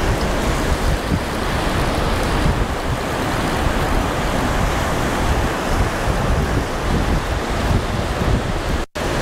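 Rough ocean surf breaking, with wind buffeting the microphone in a heavy, uneven rumble. The sound drops out for an instant near the end.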